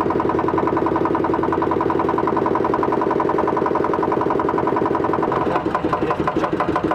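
Motorboat engine running steadily with an even, rapid pulse. Near the end the sound changes to a rougher, less regular engine run.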